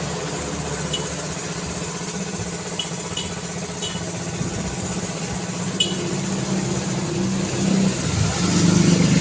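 Street traffic noise with a low engine hum and a few short clicks. An engine grows louder near the end as a vehicle approaches.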